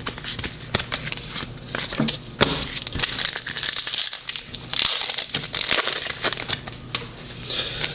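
Foil wrapper of a 2010-11 Panini Prestige basketball card pack crinkling and tearing as it is opened and handled, with a run of small crackling clicks that grows louder twice, around the third and fifth seconds.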